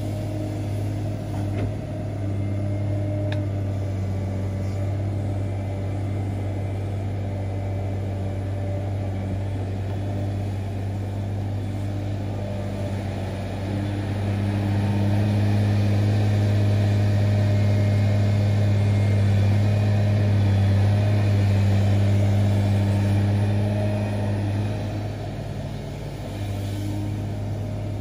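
Komatsu hydraulic excavator's diesel engine running steadily while digging. It grows louder for about ten seconds past the middle, then eases back.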